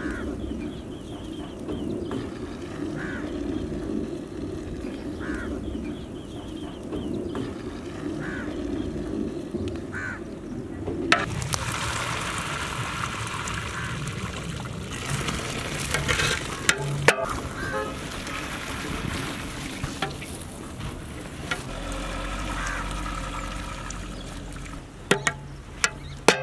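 Parboiled biryani rice water being drained from a large pot through a perforated metal strainer into another metal pot, splashing and hissing steadily from about eleven seconds in, with sharp clinks of metal on metal. Before that there is a steady low noise as the pot of rice is stirred over the wood fire.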